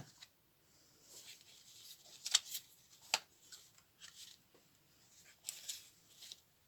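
Paper and card rustling as craft papers and ephemera are handled, with scattered crisp crinkles and a few sharp clicks, the sharpest about two and three seconds in.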